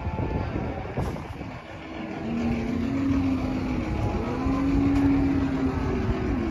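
Truck engine running and revving, its pitch climbing, dropping back, then rising and falling again over the last few seconds, over a low rumble.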